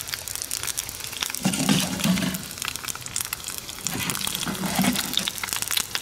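Eggs frying in oil in a small skillet made from a tin can, sizzling with many fine crackles. Two low, muffled rumbles stand out, about a second and a half in and again about four seconds in.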